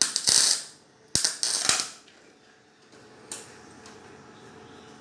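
200 A MIG welder arc crackling in short bursts, like tack welds: one right at the start, a longer one about a second in, and a fainter short one about three seconds in.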